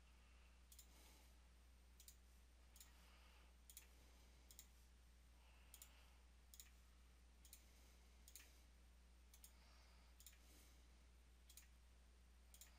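Near silence with faint computer mouse clicks, about one a second, as geometry is window-selected, over a low steady hum.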